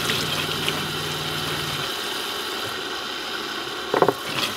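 Tap water running into a camper van's stainless sink and over hands and hair, under the steady hum of the van's electric water pump, which cuts off about two seconds in. A few splashes near the end.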